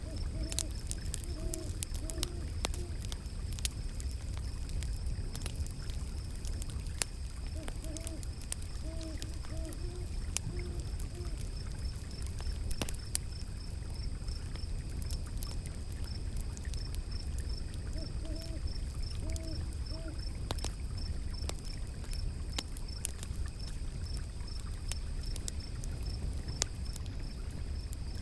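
Wood fire crackling with scattered sharp pops over a steady low rush of river water. An owl hoots in short runs of several hoots three times: about half a second in, around eight seconds in and around eighteen seconds in.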